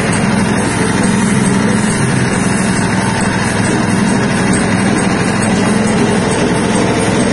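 Stainless-steel soybean dehulling and splitting machine running steadily at constant speed, a loud, even mechanical drone.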